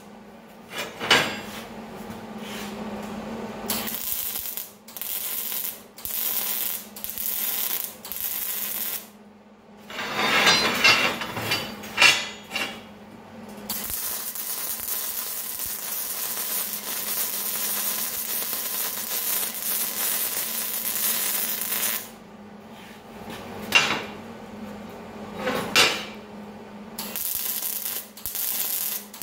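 Wire-feed MIG welder arc crackling on steel tubing. Short stitch bursts of about a second each alternate with one longer continuous bead of several seconds in the middle, with a few sharper, louder cracks along the way.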